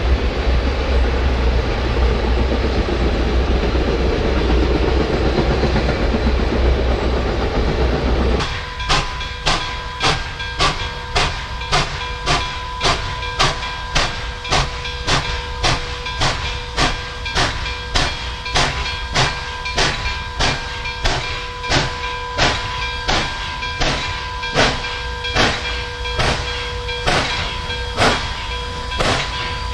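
Nickel Plate Road 2-8-4 Berkshire steam locomotive No. 765 working a passenger train. First a steady rumble and hiss, then from about eight seconds in slow, even chuffs from the stack, about three every two seconds, as it comes on at low speed. A steady ringing tone runs beneath the chuffs.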